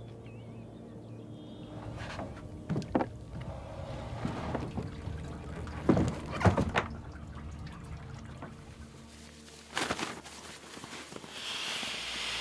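Hollow thuds and knocks of a plastic canoe being hauled up onto a wooden dock, the loudest a pair about six seconds in. Near the end, a rushing hiss of air as a pump sack is pressed to inflate a sleeping pad.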